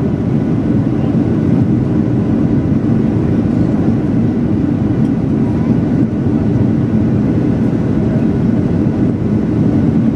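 Steady cabin noise inside a Boeing 737-800 on approach: an even, dense rumble of its CFM56 turbofan engines and rushing airflow, with no change in pitch or level.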